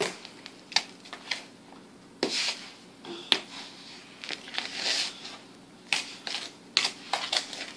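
A spoon stirring thick cookie dough in a mixing bowl: irregular scrapes with sharp clicks of the spoon against the bowl.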